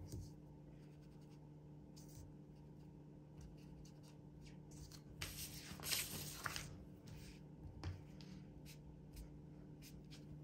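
Faint dabbing and rubbing of a sponge ink dabber on planner paper: short scattered strokes, with a longer stretch of scrubbing a little past the middle.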